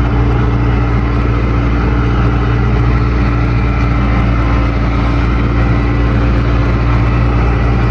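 Farm tractor engine running steadily, a constant low hum at even level throughout.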